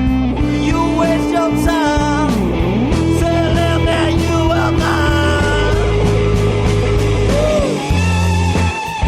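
Rock music playing: a full band with guitar, bass and drums, and a melody line that may be sung.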